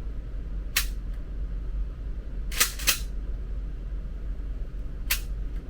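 Four gunshots: a single shot, a quick pair about a third of a second apart, then one more near the end.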